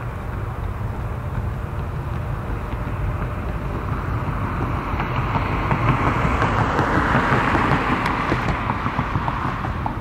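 Diesel locomotive of a Norfolk Southern local freight train approaching, its rumble growing louder over the first half and peaking about two-thirds of the way in before easing slightly.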